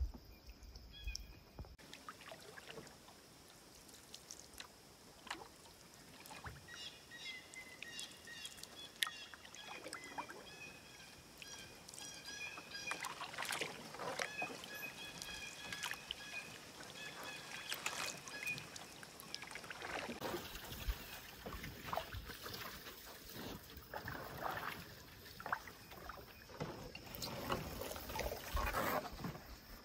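Canoe being paddled: irregular splashes and drips from the paddle strokes in the water. A bird chirps in short repeated high notes through the middle stretch.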